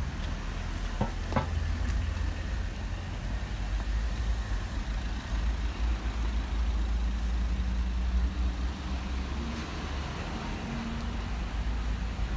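Town-street ambience: a steady low rumble with a faint haze of distant sounds, and two sharp clicks about a second in.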